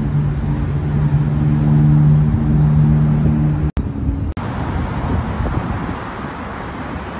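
Motor vehicle noise: a steady low engine hum. About four seconds in it breaks off abruptly, and a broader rushing road or traffic noise follows.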